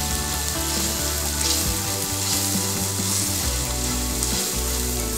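Sliced onions, green chillies and spices sizzling steadily in hot oil in a frying pan, stirred with a spatula.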